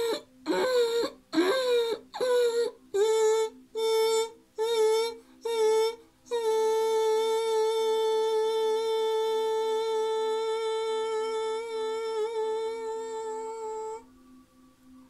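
A voice toning on one high pitch: a string of short pulsed notes, about two a second, a few of them sliding downward, then one long held note that wavers slightly and stops about 14 seconds in.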